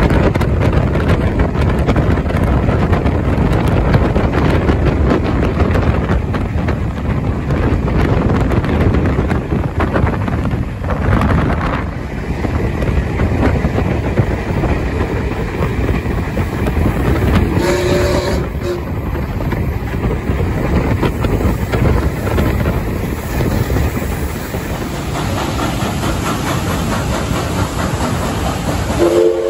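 Steam-hauled train running along the track, heard from an open carriage window: a steady, loud noise of the wheels and the moving train. The locomotive's steam whistle toots briefly about two-thirds in and sounds again right at the end. The locomotive is 5917, a NSW 59 class 2-8-2 steam locomotive.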